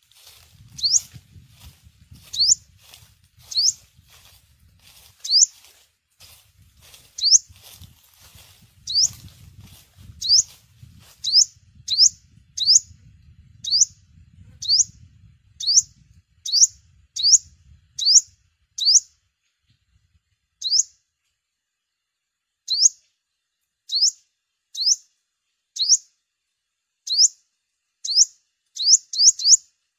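A sunbird giving short, sharp, upward-sweeping chirps, repeated irregularly about once or twice a second, sometimes in quick pairs. A faint low rumble runs underneath for the first half.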